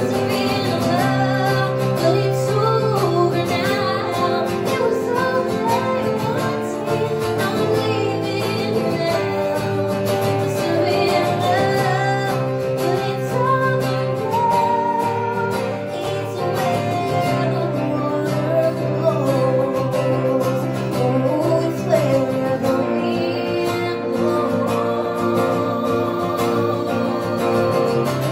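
A woman singing live with two acoustic guitars, one strummed and one picked, playing along.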